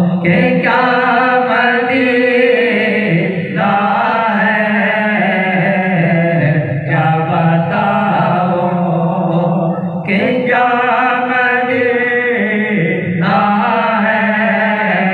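A male voice sings a naat, an Urdu devotional song, in drawn-out phrases of a few seconds each, over a steady low vocal drone.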